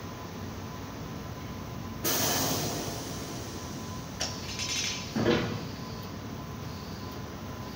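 Hunter wheel balancer's hood being swung down over the wheel: a sudden sliding rush about two seconds in that fades over a second, then a sharp click and a loud knock a few seconds later, over a faint steady hum.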